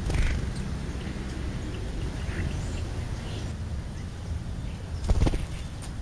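House sparrow's wings fluttering as it flies up off the food pile close to the microphone, with a louder flurry of wingbeats about five seconds in and a few faint chirps between, over a steady low rumble.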